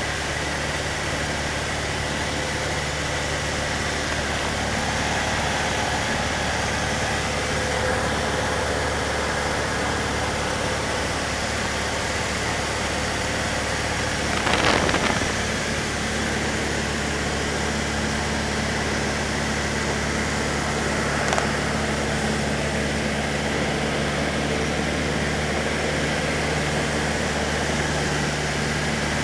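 Cessna 152's four-cylinder Lycoming O-235 engine and propeller droning steadily, heard from inside the cabin with a haze of wind noise. A brief louder rush of noise about halfway through, and a small click later.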